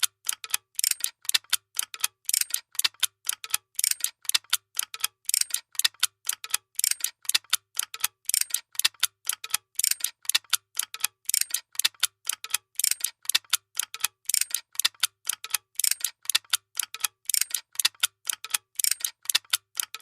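Workshop machine running with a rapid, regular mechanical clicking, about four or five clicks a second, over a faint recurring low hum.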